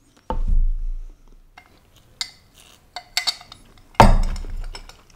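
Tableware handling on a wooden table: a low thud near the start as a phone is set down, a few light clinks, then a sharp knock about four seconds in as a glass of cola with a straw in it is set down on the table.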